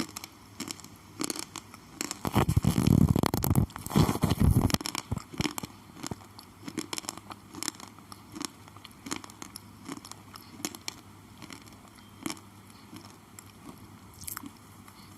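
Slate pencil being bitten and chewed close to the microphone: a loud stretch of dense crunching from about two to five seconds in, then scattered small crunches and crackles.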